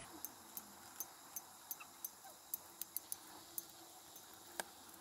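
Faint, irregular little metal clicks and ticks of a bent paper-clip tip prying at the battery-contact pins inside a Sony DSC-W350 compact camera, with one sharper click near the end. The pins are being pulled up because, it seems, they had gone slack from long pressure, leaving the camera unable to power on.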